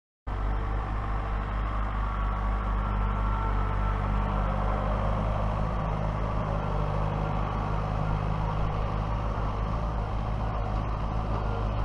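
Diesel tractor engine running steadily at an even speed; the sound cuts in abruptly just after the start.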